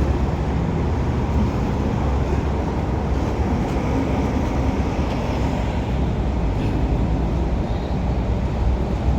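Steady low rumble of a motor vehicle engine, continuous and even in level.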